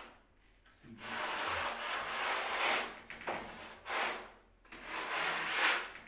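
Hand scraper scraping across a wall board in several long strokes, the first starting about a second in, preparing the surface for tiling.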